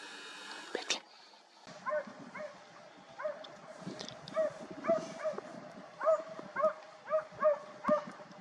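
Hunting dogs barking in quick, short, high yelps, over and over in clusters for several seconds. A steady hum cuts off about a second in, before the barking starts.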